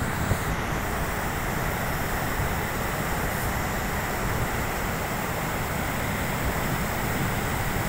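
Steady rushing of a fast white-water mountain river tumbling over boulders, an even unbroken noise.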